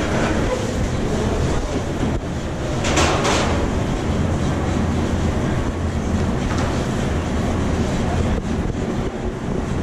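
Steady machinery noise with a low hum in a food-production workroom, with a brief clatter about three seconds in.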